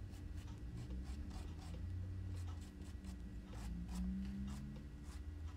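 Paintbrush bristles scratching across burlap in a quick series of short strokes, with a low steady hum underneath.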